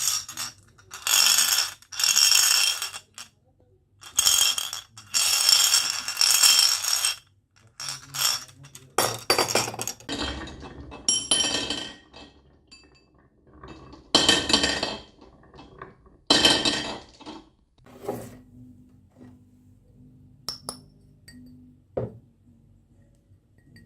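Marbles rolling and clinking down a toy marble run, in repeated rattling runs of one to two seconds each, followed by a few single clicks near the end.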